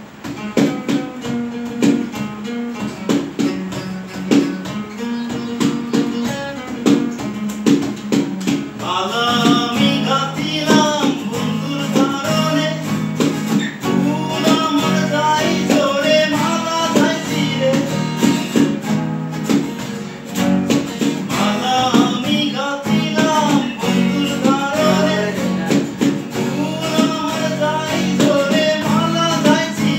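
Acoustic guitar strummed, with hands beating time on a plastic stool as a drum. A man's voice comes in singing about nine seconds in and carries on over the guitar and beat.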